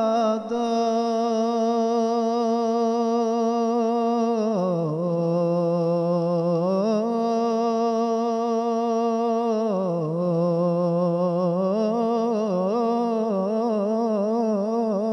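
A man's solo voice singing an Arabic devotional song (inshad) without accompaniment. He holds a long wordless melismatic line with vibrato and quick ornaments, dropping lower twice and climbing back each time.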